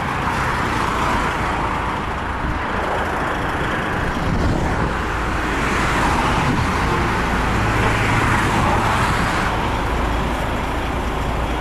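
Highway traffic passing close by: tyre and engine noise of vehicles swelling and fading several times, over a steady low rumble.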